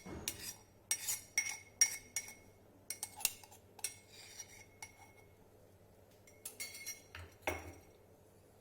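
Metal kitchen utensils clinking: a string of light, irregular metallic taps with short ringing, two or three a second, and a duller knock about seven and a half seconds in.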